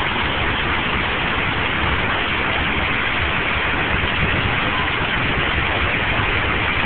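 Fountain jets splashing into a pool: a steady rush of falling water.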